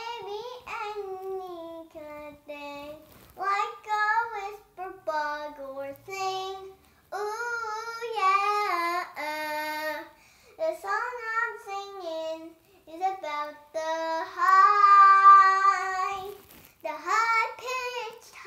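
A young girl singing on her own, without accompaniment, in phrases of gliding and held notes with short pauses between them. The longest and loudest note, held for about two seconds, comes about fourteen seconds in.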